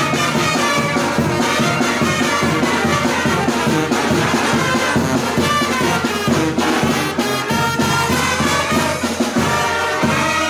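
Oaxacan brass band playing, with trumpets and trombones over a steady drum beat.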